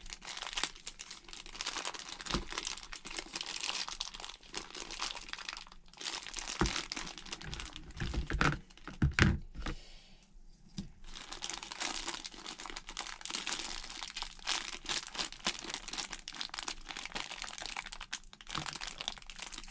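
Clear plastic packaging bag crinkling and crackling as hands work a stubborn Beyblade part out of it. A few soft thumps come about halfway through, then a brief lull.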